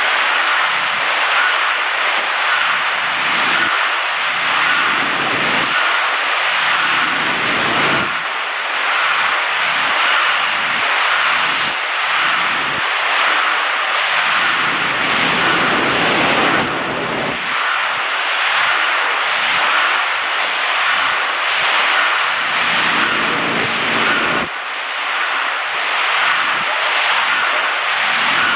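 Automatic wire-mesh welding line running: a loud, steady mechanical hiss with a regular pulsing beat, the rhythm of the machine's repeated welding and feed cycle.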